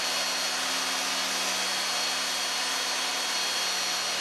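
Electric hand drill with a spade bit boring into melamine-laminated particleboard: the motor runs at a steady speed with a steady whine while the bit cuts through the board.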